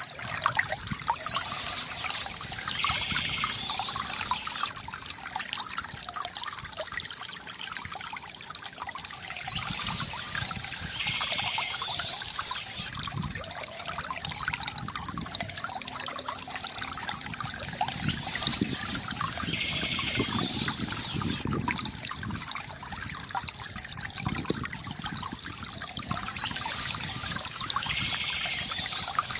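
Water trickling and splashing in a shallow stream, with a bird's song phrase of a few seconds coming back four times, about every eight to nine seconds.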